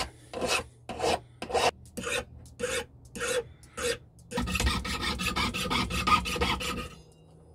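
Hand file rasping across the end of a thick metal wire held against a wooden bench pin, in separate strokes about two to three a second. A little over four seconds in it gives way to a jeweler's saw cutting through the wire with rapid short strokes, which stop about seven seconds in.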